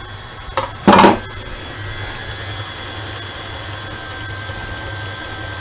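Stand mixer motor running steadily as it blends cheesecake batter, with a brief loud knock about a second in.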